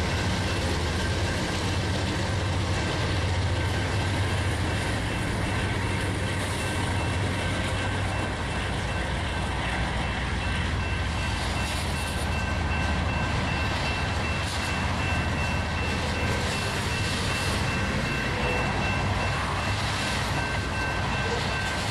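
Freight train cars rolling past on the rails: a steady rumble and rattle, with a low hum that eases off about halfway through, and a steady high-pitched ringing tone above it.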